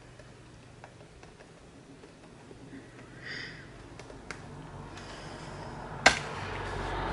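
Faint small clicks and handling of a Chicago screw being tightened with a screwdriver on a bag strap, then a sharp knock about six seconds in and rustling as the bag is flipped over.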